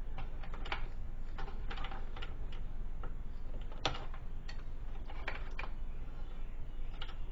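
Wire strippers clicking and snipping as insulation is stripped from electrical cord wires: a scatter of light, irregular clicks, the sharpest about four seconds in.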